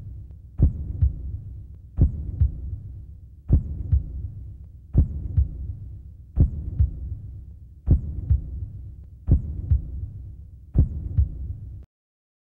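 Slow, deep thumping in a repeating pattern, one strong beat followed by two lighter ones about every second and a half, like a heartbeat sound effect. It cuts off abruptly near the end.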